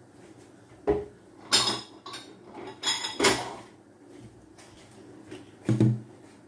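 Dishes and cutlery being handled on a kitchen counter: about five separate clatters and knocks, the sharpest about a second and a half in and a little past three seconds, and a duller thud near the end as a plate is set down.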